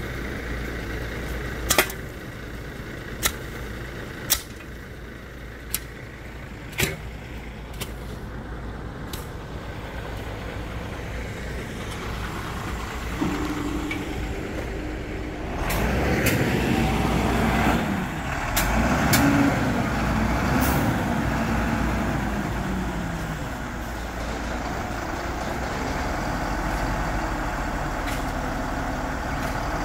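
A hoe chopping into weedy soil, several separate sharp strikes in the first eight seconds. Then a crane truck's diesel engine runs, revving up and down for several seconds past the middle before settling to a steady idle.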